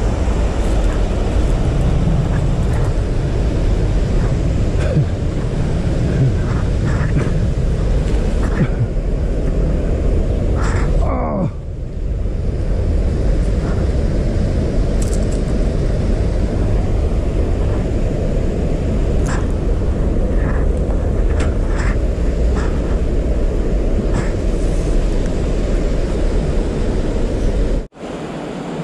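Steady, loud low rumble of wind buffeting a body-worn camera's microphone, with a few light clicks from handling the spinning rod and lure. A short rising sound comes about eleven seconds in.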